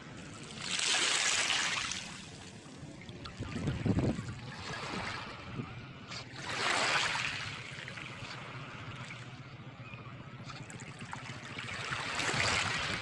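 Small sea waves washing in at the water's edge: three hissing swells about five to six seconds apart, with a duller, lower bump about four seconds in.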